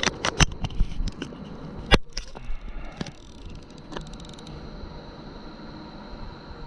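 Handling noise on the camera as it is moved onto a chest mount: a run of sharp plastic clicks and knocks with rubbing, the loudest knock about two seconds in. After about four and a half seconds the knocks stop and only a steady, thin high-pitched tone remains.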